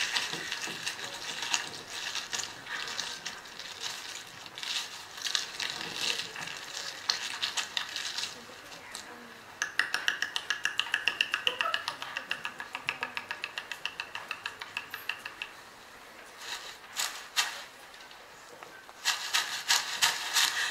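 Sound effects made by hand: crackling and rustling, then a regular run of sharp rattling clicks at about five a second with a faint shrill tone behind them. A denser, louder rattling starts near the end.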